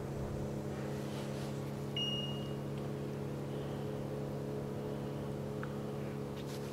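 A steady low mechanical hum holding several pitches at once, with a brief high chirp about two seconds in.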